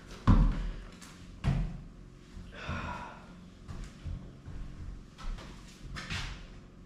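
Heavy thumps on a wooden plank floor as a person gets up off it, the loudest about a third of a second and a second and a half in. Then lighter knocks and footsteps walking away, with a short scuffing sound about three seconds in.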